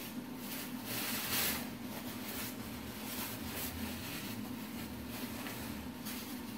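Plastic packing wrap and the vinyl skin of an inflatable toy rustling and crinkling as the wrapping is pulled off and crumpled by hand, loudest about a second and a half in, over a steady low hum.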